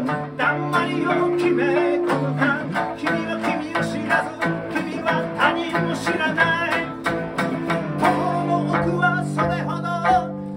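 Live acoustic band: two acoustic guitars strummed in a steady rhythm with a sanshin, under a man singing lead, who holds one long note near the end.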